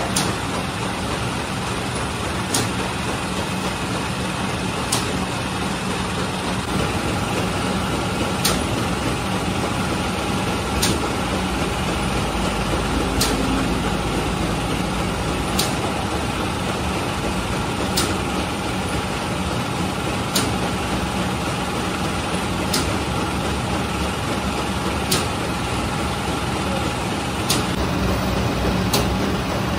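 Bakery machinery running with a steady hum, and a sharp click about every two and a half seconds as the machine cycles.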